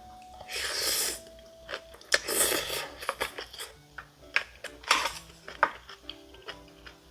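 Eating sounds: crunchy chewing of vegetable bibimbap in three noisy bursts, with short clicks of a spoon against the bowl. Light background music with plinking notes plays throughout.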